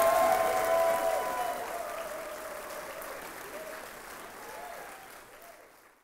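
Crowd of wedding guests applauding and cheering, with a few whoops, for the newly introduced couple. The sound fades out steadily to silence at the end.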